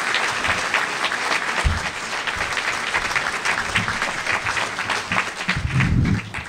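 Audience applauding, a dense, steady clapping. A few low thumps come through, the strongest near the end.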